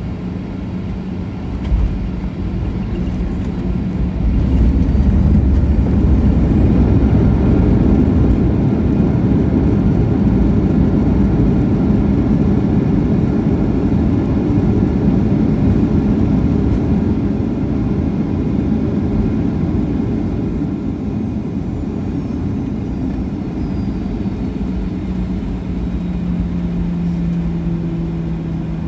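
Boeing 737-900 airliner landing, heard inside the cabin: a thump of touchdown about two seconds in, then a loud rush of engine reverse thrust and braking builds up and slowly dies away as the jet slows. A steady engine hum comes back near the end.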